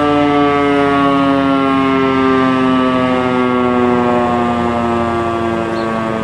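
Sentry 14V-B outdoor warning siren sounding its alert tone, a loud steady wail whose pitch falls slowly and evenly as the siren winds down.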